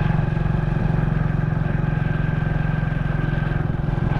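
Motorcycle engine running steadily with an even, rapid firing beat.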